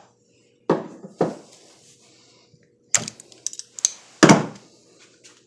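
Knocks and clunks of hand tools and a metal bench machine being handled: two thuds about a second in, a quick run of clicks around three seconds, and the loudest clunk a little after four seconds.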